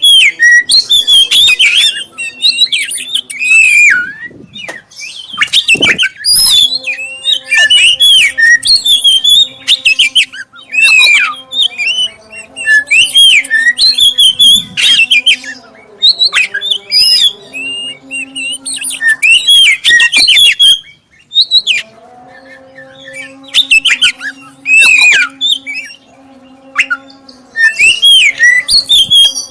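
Black-breasted oriental magpie-robin (kacer dada hitam) singing a clear, varied song of quick whistles mixed with harsh chattering notes, in phrases broken by short pauses. It is a lure recording of the kind played to set other magpie-robins singing. A faint steady hum sounds underneath at times.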